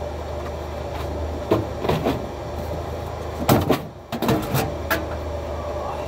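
A handful of separate knocks and clatters as things are handled and set down while the white lithium grease is fetched, over a steady low hum.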